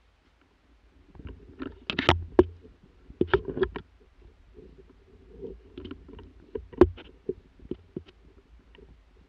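Footsteps crunching through snow and low brush, with twigs and clothing rustling and snapping in irregular bursts. The sounds start about a second in, with the loudest cracks around two seconds, three to four seconds, and near seven seconds.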